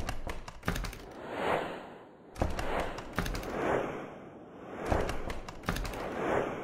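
Repeating whoosh sound effects, each swelling and fading, about every two and a half seconds, with a quick cluster of sharp clicks before each one.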